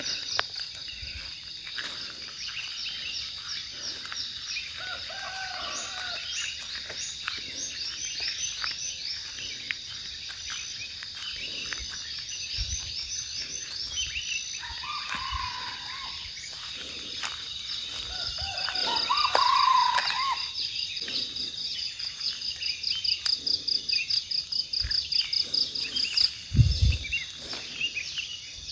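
Forest ambience: a steady high insect buzz that turns into a fast pulsing trill in the second half, with a few short bird calls. A junglefowl calls briefly about two-thirds in, the loudest moment, and there is a dull thump near the end.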